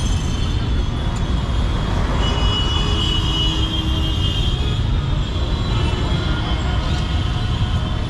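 Steady low rumble of passing vehicles, with a thin high-pitched tone for a couple of seconds in the middle.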